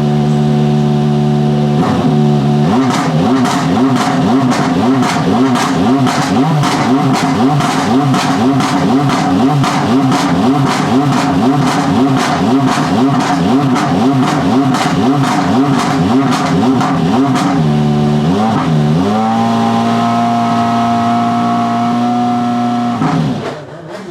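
Mercedes-AMG C63 DTM race car's 4.0-litre V8 warming up. It runs steady for a couple of seconds, then rises and falls in revs about twice a second with a sharp crack on each cycle, then holds a higher steady pitch before dropping back near the end.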